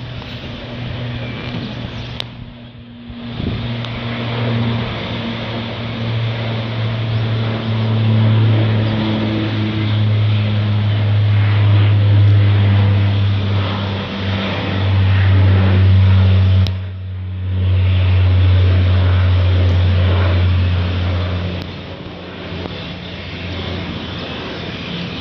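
Aircraft engines droning overhead: a steady low drone that swells, stays loud through the middle and drops off about three-quarters of the way through, cutting out briefly twice.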